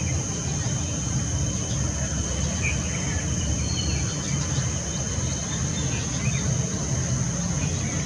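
Outdoor ambience: a steady high-pitched insect drone over a low rumble, with a few faint short bird chirps scattered through.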